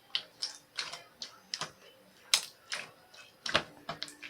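Pink slime being pressed and worked by hand, giving a quick irregular string of sharp clicks and pops, about two or three a second.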